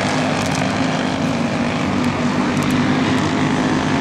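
Racing go-kart engines droning steadily as karts run around the track.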